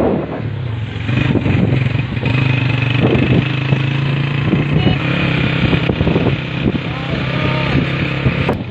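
A motor vehicle's engine running at a steady low pitch as it drives along.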